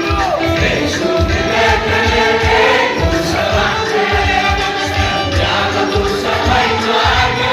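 A choir singing a gospel worship song over a steady, driving drum beat.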